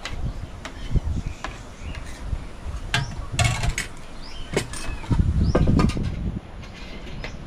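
Spoons and a ladle clinking and scraping against plates and a metal soup pot during a meal, in scattered sharp clicks, some with a short ring. There are low thumps, and the loudest moment is a low rumbling thump about five seconds in.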